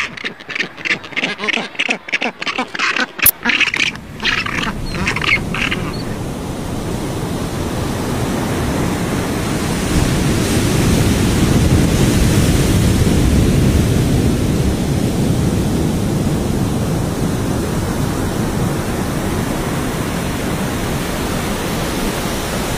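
Harsh, rapid calling from a colony of rockhopper penguins and black-browed albatrosses for the first few seconds. Then the steady rush of a waterfall sets in about six seconds in and grows louder around ten seconds.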